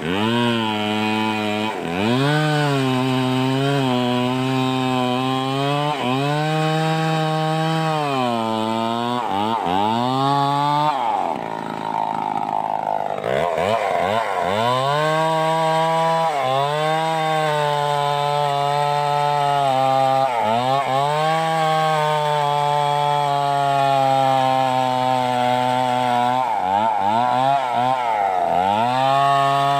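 Stihl 038 two-stroke chainsaw running hard while cutting through wood. Its engine pitch drops under load again and again and climbs back up each time.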